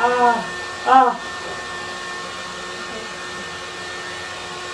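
A person's voice cries out twice, briefly, at the start and again about a second in. After that a steady whirring of a small motor carries on with a faint even hum.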